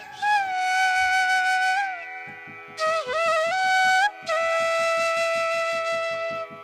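Background music: a flute playing a slow melody of long held notes with gliding bends over a steady drone, with a soft even percussion pulse coming in a couple of seconds in.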